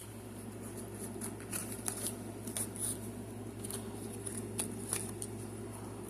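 AA batteries being fitted into the battery compartment of a Midland WR-100B weather radio: irregular small clicks and plastic rattles from handling, over a steady low hum.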